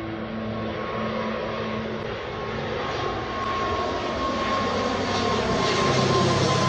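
Jet aircraft engine noise: a steady rushing roar with a thin high whine, slowly growing louder.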